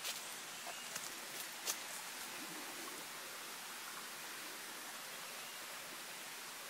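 Steady, even hiss, with a few faint clicks in the first two seconds.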